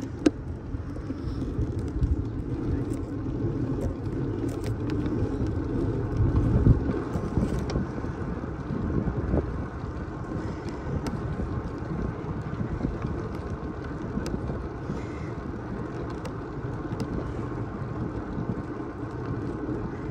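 Wind buffeting the microphone over a steady low rumble, with a few faint clicks.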